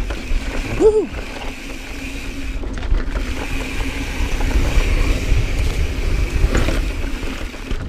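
2018 Santa Cruz Bronson mountain bike riding a dirt singletrack: knobby tyres rolling and rattling over the ground with a steady high hum, and wind rumbling on the microphone. A brief rising-and-falling squeal about a second in.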